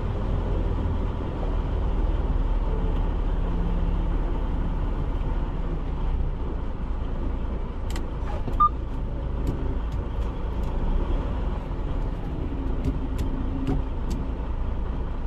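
Diesel semi-truck engine idling, a steady low rumble, with a few light clicks and a short beep about eight and a half seconds in.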